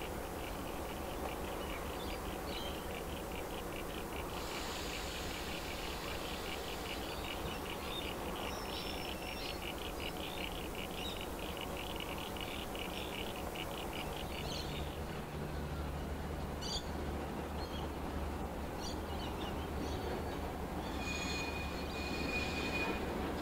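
Two heritage diesel locomotives, 4702 and 4204, hauling a passenger train toward the listener. Their low engine drone grows louder about two-thirds of the way in, and a brief high wheel squeal comes near the end.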